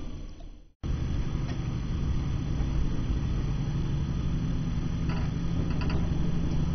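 Diesel train engine running steadily, heard from the driver's cab as the train moves off past a station platform; the sound cuts out briefly to silence just under a second in at an edit, then the steady low engine hum resumes.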